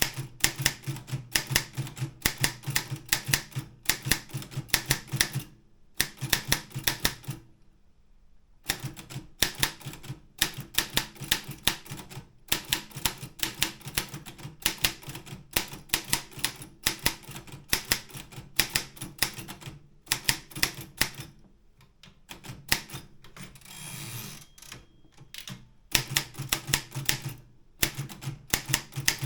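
Optima M12 manual typewriter being typed on: fast runs of sharp keystrokes with a few short pauses. About two-thirds of the way through, the clicking gives way to a brief sliding noise.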